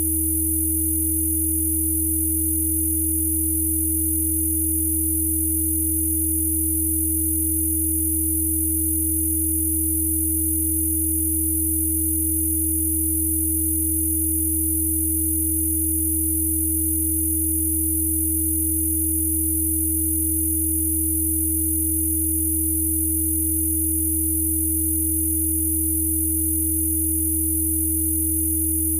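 Synthesized Rife-frequency sine-wave tones, several pitches sounding together: a low hum, a clear mid-pitched tone and a very high whine. All are held steady and unchanging.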